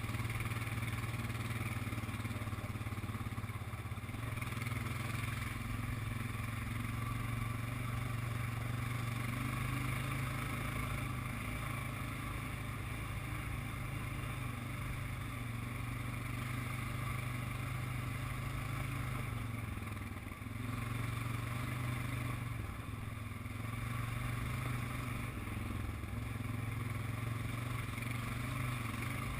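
ATV engine running steadily under throttle, with a brief drop in engine sound about twenty seconds in.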